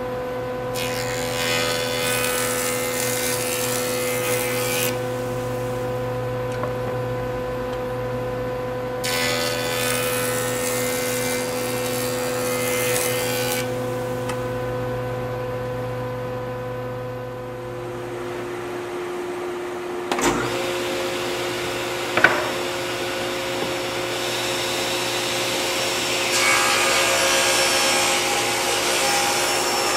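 A jointer running, with a black walnut board fed edge-down across the cutterhead twice, about four seconds of cutting each pass. Then a different machine, a table saw, runs with its own steady hum, with a sharp click a couple of seconds in, and a walnut board begins feeding into the blade near the end, the cutting getting louder.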